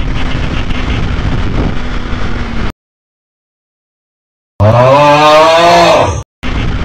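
Yamaha R6 inline-four running at speed under steady wind rush. About halfway through the sound cuts out for roughly two seconds, then the engine comes back loud, revving hard and rising in pitch as it accelerates. After a brief dropout the steady riding sound returns.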